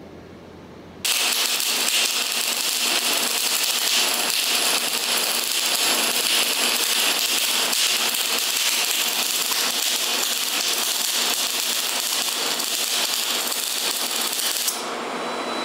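MIG welding arc in high-speed spray transfer, 1.2 mm mild-steel wire at about 201 A: a steady, dense crackling hiss that starts abruptly about a second in and softens slightly near the end.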